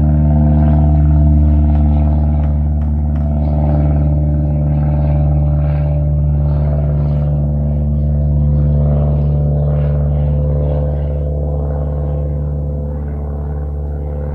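Small single-engine propeller plane flying overhead, its engine a steady drone that slowly fades over the last few seconds.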